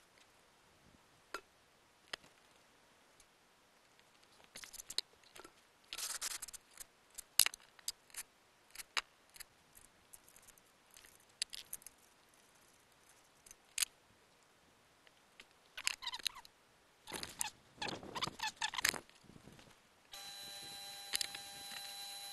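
Scattered metallic clicks and knocks of a spanner and bolts as the steel front plate of a test chamber is bolted down, some in quick clusters. About 20 seconds in a steady hum starts.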